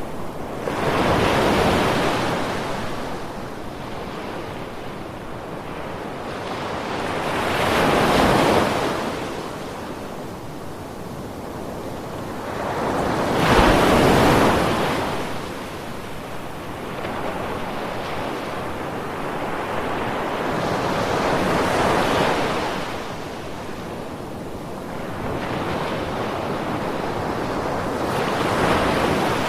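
Ocean waves breaking and washing onto a sandy shore, five swells of surf rising and fading about every six to eight seconds, the one about halfway through the loudest.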